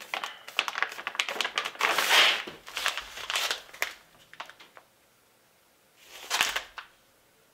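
Plastic mailer bag and plastic-wrapped underwear packaging crinkling and rustling as they are pulled open and handled, dying away about four seconds in. A short, louder burst of sound comes near the end.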